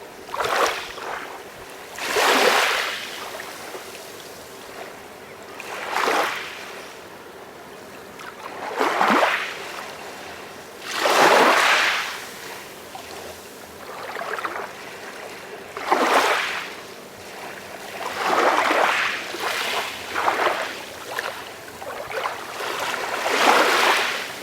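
Calm sea waves breaking and washing in, each wash swelling and fading away, one about every two to five seconds.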